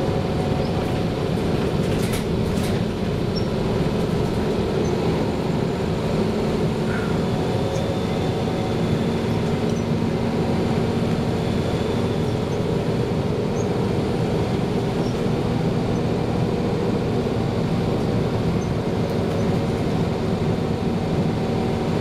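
Interior drone of a 1994 TMC RTS transit bus under way: its Detroit Diesel Series 50 inline-four diesel and drivetrain running steadily, with a couple of light rattling clicks about two seconds in.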